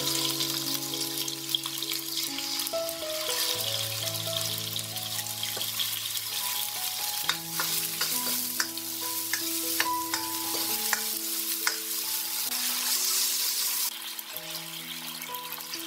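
Food sizzling as it is stir-fried in a hot pan, with a few sharp clicks. The sizzle drops away about fourteen seconds in. Soft background music with long held notes plays throughout.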